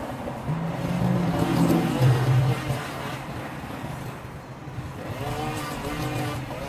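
Small two-stroke string trimmer engine revving up and down, its pitch rising and falling in bursts, loudest in the first few seconds.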